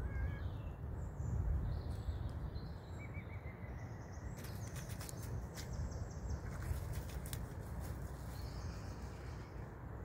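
Wind noise on the microphone, with a few faint bird chirps in the first few seconds and a run of crackling rustles in dry grass through the middle.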